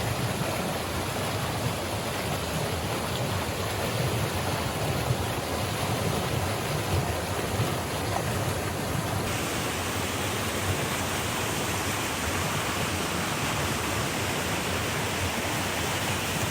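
Mountain stream rushing over rocks: a loud, steady rush of water that cuts off abruptly at the end.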